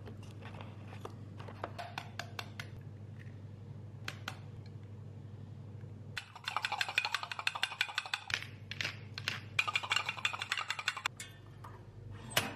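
Eggs handled in a cardboard carton with a few light clicks and taps over a low steady hum. About six seconds in, an egg is cracked and a dense crackling sizzle of frying starts, pausing briefly and stopping about a second before the end.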